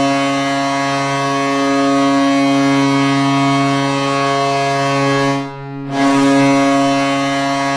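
Ice hockey arena goal horn blowing a loud, steady, deep note, signalling a goal. It sounds once, cuts out briefly about five and a half seconds in, then sounds again.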